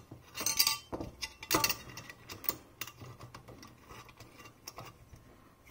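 Light metal clicks and ticks of a steel locknut being threaded by hand onto a conduit coupling between two steel junction boxes, a few sharper clicks in the first half, fainter after.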